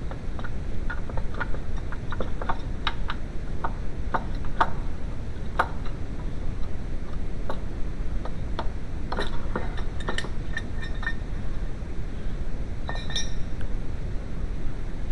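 Scattered light metallic clinks and taps of hand tools or small metal parts being handled, a few ringing briefly, over a steady low background rumble.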